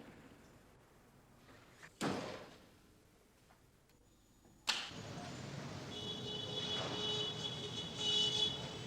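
Heavy slams, two about two and a half seconds apart, each ringing briefly. After the second, a steady rushing noise sets in, joined about a second later by a thin, steady high squeal.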